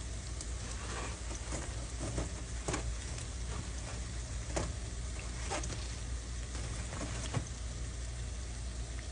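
Snack frying in hot oil: a steady sizzle with scattered sharp crackles and pops, over a low steady hum.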